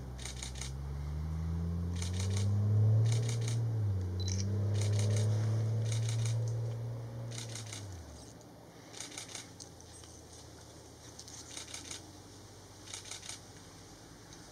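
Bursts of rapid camera shutter clicks, one burst every second or two, over a low engine drone that rises in pitch, drops about four seconds in and fades out about eight seconds in.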